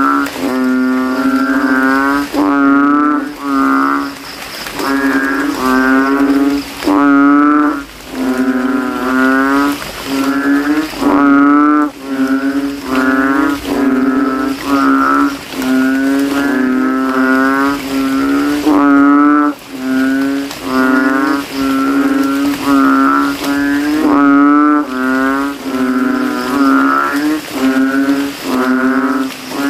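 Banded bullfrog (Asian painted frog, Kaloula pulchra) calling: loud, deep calls given in quick succession, each well under a second long, as the male inflates its throat sac.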